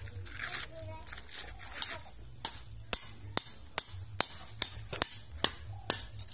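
Small metal hand hoe chopping into sandy ground. Each stroke gives a sharp clink, about two and a half a second, starting about two seconds in.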